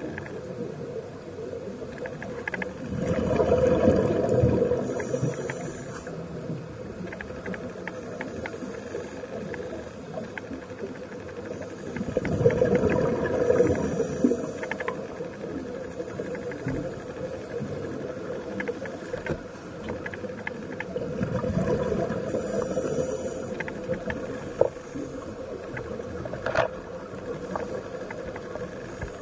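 Scuba diver breathing through a regulator underwater: three rumbling swells of exhaled bubbles, about nine seconds apart, each ending in a short high hiss from the regulator, over a steady underwater wash.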